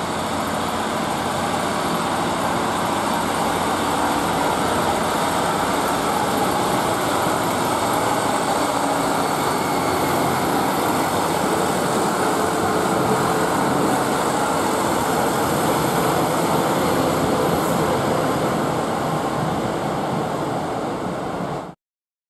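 A Sprinter diesel multiple unit approaching and running past, its underfloor diesel engines and wheels on the rails making a steady rumble that swells slightly as it comes alongside. The sound cuts off abruptly near the end.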